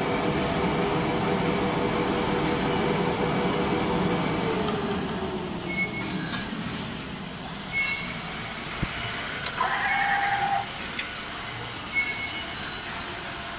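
Richpeace four-side overlock and lockstitch sewing machine running: a steady motor whine that falls in pitch and fades about four to seven seconds in. After that come short high chirps every couple of seconds, a few light clicks and a brief tone near the ten-second mark.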